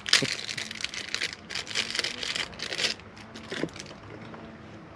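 Plastic packaging crinkling and tearing as it is pulled open by hand, a rapid crackling that stops about three seconds in.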